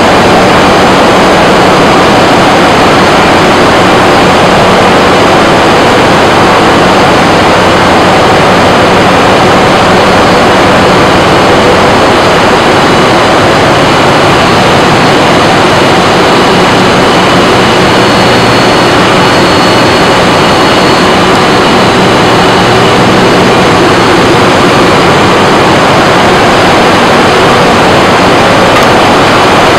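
Loud, steady noise of a container ship's engine room with its machinery running: an even din with faint steady hums under it and no breaks.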